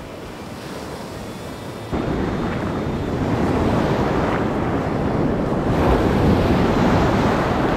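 Ocean surf breaking and white water washing over the sand, with wind on the microphone. About two seconds in it turns suddenly louder and closer, a rushing wash of foam.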